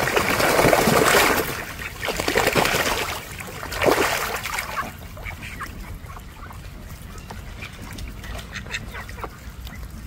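Domestic ducks bathing, splashing and beating their wings in the water, loudest in the first second and a half and again around four seconds, with quacking among the flock.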